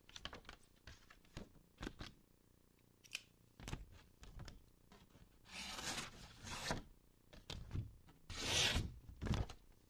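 Stiletto knife blade slicing through a paper flyer in a paper-sharpness test: two slicing passes, the first over a second long, the second shorter and louder, after some light paper rustling and handling clicks.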